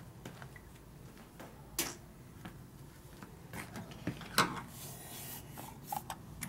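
Scattered small clicks and taps of hands and tools handling the Harley Knucklehead's ignition timer linkage. The sharpest click is about four and a half seconds in, followed by a short scratchy hiss.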